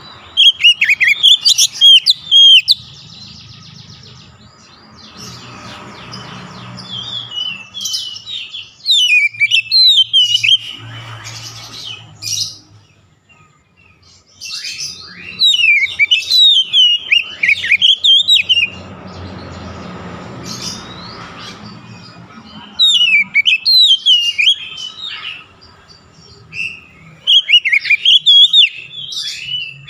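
Oriental magpie-robin singing: loud bouts of rapid, varied whistled phrases, about five of them with short pauses in between.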